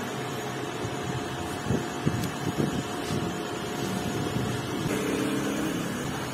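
Steady hum of a running workshop machine motor, with a faint whine in it that stops about five seconds in. A few light knocks of metal parts being handled come around two seconds in.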